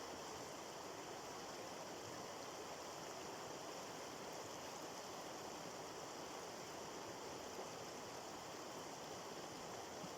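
Water flowing steadily in a stream: a faint, even rushing with no breaks.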